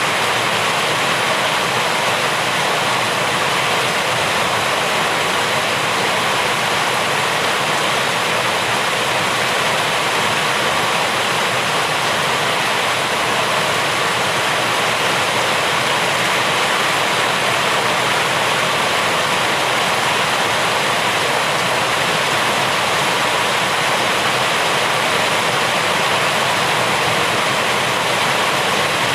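Heavy, steady rain: a dense, even hiss with no single drops or pattering standing out.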